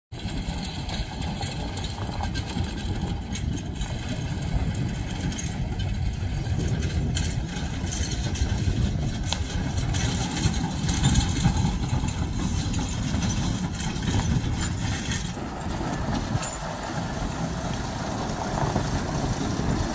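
Diesel engine of a heavy goods truck running, a steady low sound throughout.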